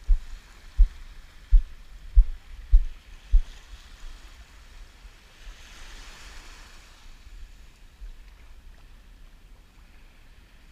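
Small waves washing on a sandy shore, one wash swelling and fading about halfway through. A run of six dull low thumps, about one every two-thirds of a second, is the loudest sound over the first few seconds.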